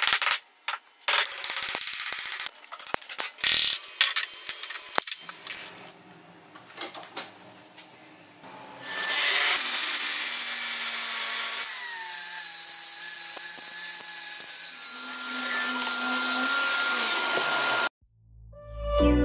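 A hammer taps rapidly again and again on the wooden form around a cured epoxy panel. Then a Festool TS 55 REBQ plunge track saw runs and cuts through the epoxy-and-wood panel, its pitch dropping as the blade takes the cut. The saw sound stops abruptly near the end.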